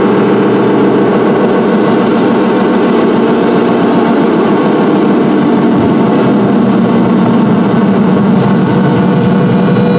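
Live electronic noise music from a quartet's wired-up devices: a loud, thick, steady low drone with no beat or pauses.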